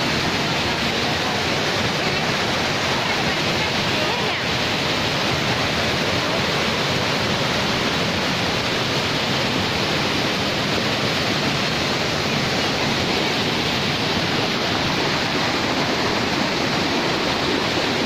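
Waterfall pouring over rock ledges, a loud, steady rush of water.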